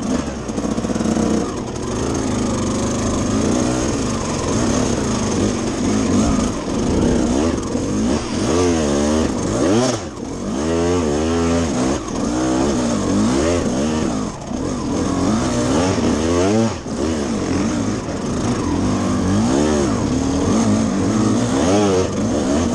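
Off-road motorcycle engine revving up and dropping back again and again as the throttle is opened and shut, heard from on the bike.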